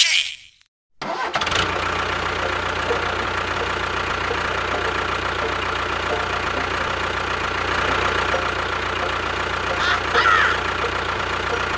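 A motor running steadily with an even hum, starting after a brief silent cut about a second in. There is a short chirp near the end.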